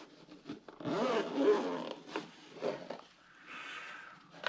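Zip of the GoPro Hero 9's carry case being pulled open in a couple of scraping runs, with the case being handled.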